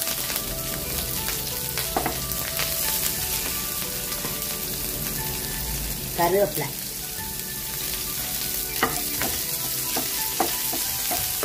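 Green chillies and mustard seeds sizzling in hot oil in a nonstick frying pan, stirred with a wooden spatula: the tempering stage of cooking. A steady sizzle with a few sharp clicks.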